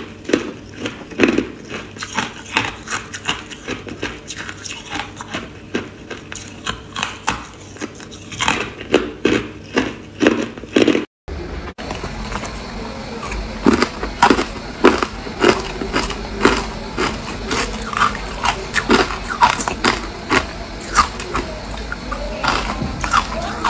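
Close-up crunching of hard ice dusted with matcha powder being bitten and chewed, a quick run of sharp crunches, two or three a second. The sound drops out completely for a moment about halfway through, then the crunching resumes over a low steady hum.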